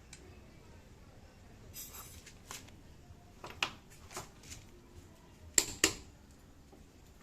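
Torque wrench being handled, giving a scatter of sharp mechanical clicks and knocks with a brief rustle among them. The two loudest clicks come close together near the end.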